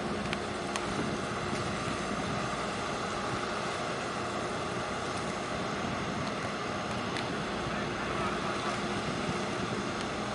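Steady harbour ambience: a wash of wind and water noise with a faint, steady low hum running underneath.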